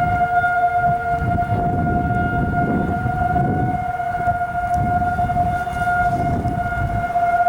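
Federal Signal 2001-series electromechanical outdoor warning sirens sounding a steady tone during a test, held at one pitch without rising or falling. A low, uneven rumble runs beneath it.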